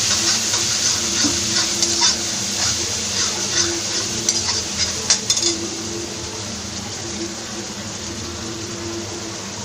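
Gravy sizzling in a hot frying pan while a spoon stirs it, with frequent clicks and scrapes of the spoon on the pan during the first five seconds or so, then a steadier sizzle.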